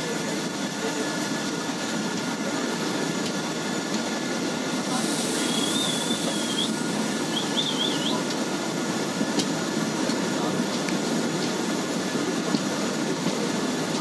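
Steady running noise of a train rolling along the track, wheels on rails. About halfway through, a high wavering squeal comes twice.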